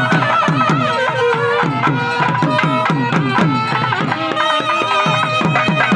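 Traditional South Indian temple music: a reedy wind-instrument melody with wavering, held notes over rapid drum strokes, about five a second, each stroke dropping in pitch.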